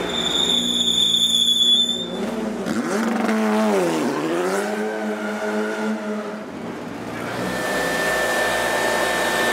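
TC2000 touring car engine running in the pit lane, with a high whine in the first two seconds and its pitch dipping and then climbing again a few seconds in. Near the end a handheld blower starts up with a steady high whine.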